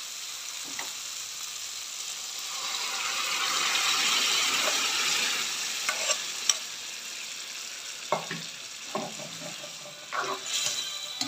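Tomatoes and onions frying in a wok, the sizzle swelling to a loud hiss midway as mung beans in their liquid are poured into the hot pan. A pot knocks twice on the wok, then a metal ladle scrapes and stirs the soup in several strokes near the end.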